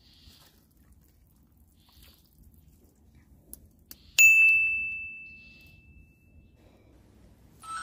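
A single bright 'idea' ding sound effect, struck about four seconds in and ringing out as it fades over about two seconds.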